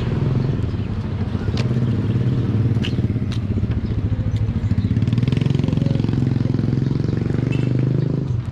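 Motorcycle of a motorcycle-sidecar tricycle, its engine idling steadily, with a few light clicks over it.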